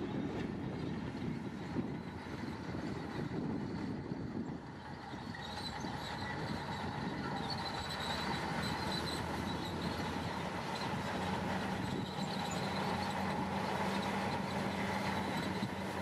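Komatsu crawler bulldozers at work: diesel engines running under load with the clatter of steel tracks, and a thin high squeal from about five seconds in.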